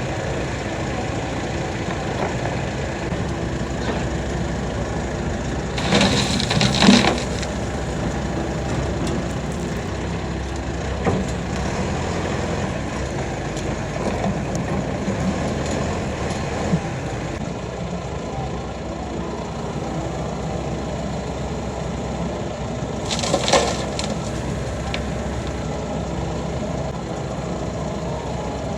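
Kobelco SK85 excavator running steadily, with two louder crunching scrapes, about six seconds in and again near the end, as the bucket breaks out and drags concrete and gravel.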